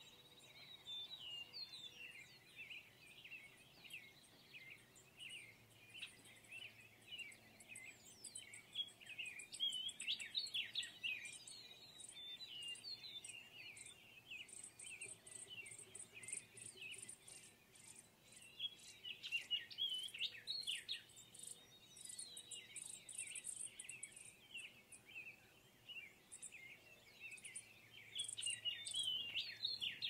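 Many small birds chirping and twittering, with stretches of a high, fast-pulsing insect trill.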